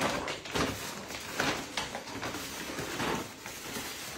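Plastic dog food bag rustling, crinkling and scraping along a tile floor as a basset hound drags it in its mouth, in several uneven rushes.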